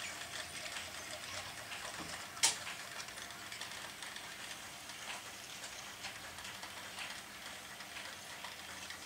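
Model trains running on the layout: a faint steady rolling hiss with scattered light clicks, and one sharper click about two and a half seconds in.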